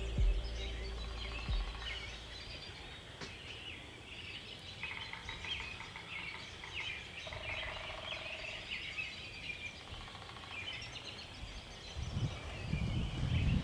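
Many small birds chirping and singing together in spring woods, with a low rumble coming in near the end.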